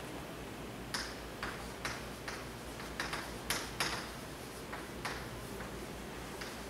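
Chalk writing on a chalkboard: a string of short, irregular taps and brief scratches as the chalk strikes and drags across the board.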